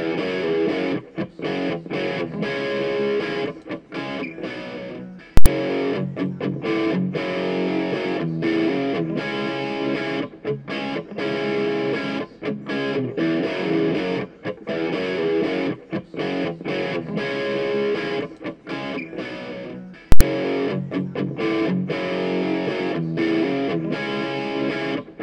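Background music led by distorted electric guitar. Two sharp clicks, the loudest sounds, cut through it: one about five seconds in and another about five seconds before the end.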